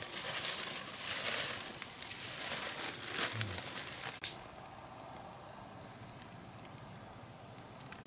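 Dry leaves and undergrowth rustling and crackling as a person shifts and moves about, with small snaps, ending in one sharp click about four seconds in. After that the rustling stops and only a steady high thin whine remains.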